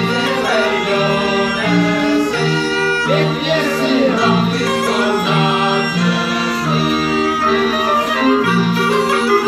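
Czech folk band playing a dance tune: a fiddle melody over a bass line that changes notes on the beat.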